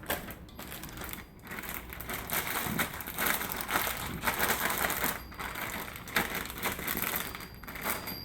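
Plastic zip-top freezer bag crinkling and rustling as it is squished and kneaded by hand to mix the contents, with quick crackles throughout.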